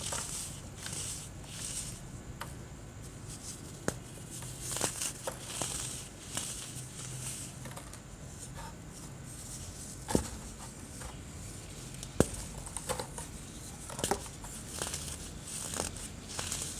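Compacted white baking soda being crushed: a steady run of soft crunching and crumbling, with several sharp cracks.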